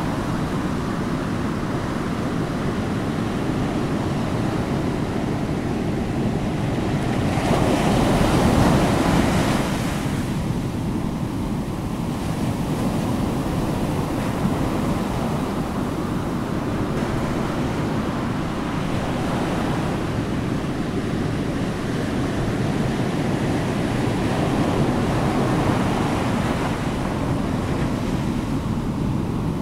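Steady rush of ocean surf, with a wave swelling up and washing in about eight seconds in and a softer one near the end.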